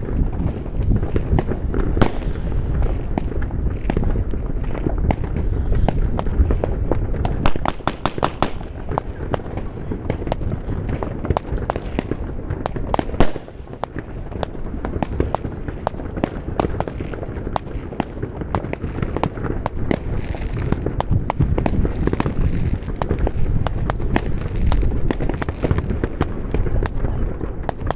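New Year's Eve fireworks and firecrackers going off all around in a continuous crackle of bangs and deeper booms. About a third of the way in, a rapid string of cracks goes off, and there is a short lull about halfway through.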